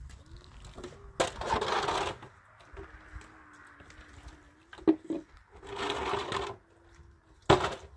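Water poured from a plastic jug into a plastic basin, splashing in two pours of about a second each, with a few sharp knocks of plastic and metal containers being handled.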